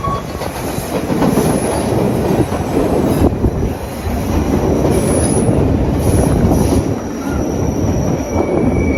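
Chicago CTA 'L' rapid-transit train running on the rails with a dense rumble and clatter, its steel wheels squealing in thin high tones that come and go. A steady high squeal sets in near the end.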